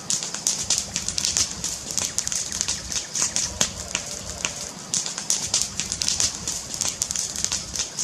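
Fireplace crackling: dense, irregular pops and snaps over a steady hiss.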